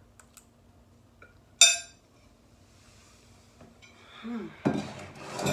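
A metal fork clinking against a ceramic plate: a few light taps, then one sharp ringing clink about a second and a half in. Near the end a short hum from the voice and a burst of rustling movement.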